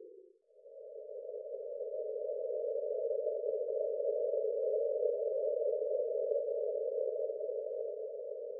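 Breathing-pace guide tone: a narrow, steady hum that swells up over the first few seconds, holds, and tapers off near the end, pacing one slow breath. It sits a step higher than the lower tone that alternates with it on either side.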